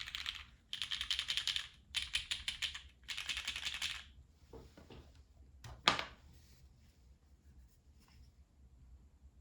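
Typing on a custom Goblin mechanical keyboard with lubed Cherry MX Brown Hyperglide switches on a polycarbonate plate and GMK keycaps: four quick bursts of rapid keystrokes that stop about four seconds in. A few softer clicks follow, then a single sharp, loud knock about six seconds in.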